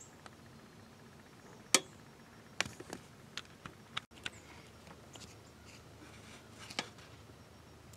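A scattering of sharp clicks and light knocks over a quiet background. The loudest comes a little under two seconds in, several more follow in a cluster around three to four seconds, and one more comes near the end.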